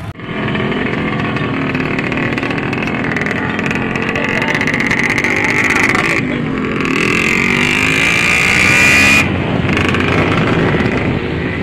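Motorcycle engines running and revving, the pitch rising and falling. The sound changes abruptly about six and nine seconds in.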